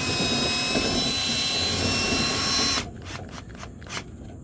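Power drill spinning a rotary dryer-vent whisk tool inside the duct, a steady whir with a high whine that cuts off suddenly near the end, followed by a few sharp knocks.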